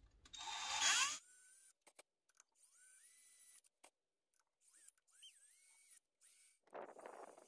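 Cordless drill spinning up with a rising whine for about a second as a small bit bites into a broken pressure-plate bolt in the flywheel, then near silence. A second short burst of drilling comes near the end.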